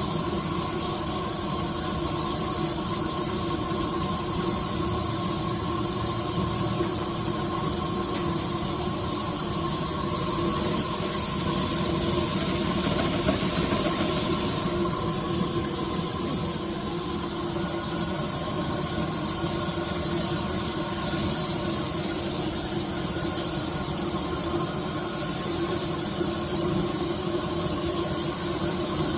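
Sausages, peppers and onions sizzling steadily on a grill, with a constant mechanical hum underneath.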